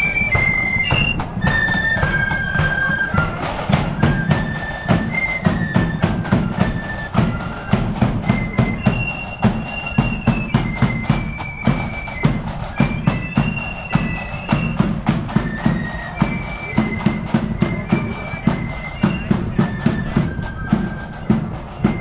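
Marching flute band playing a shrill melody in unison on side-blown flutes, over drums beating a steady march rhythm of about two strokes a second.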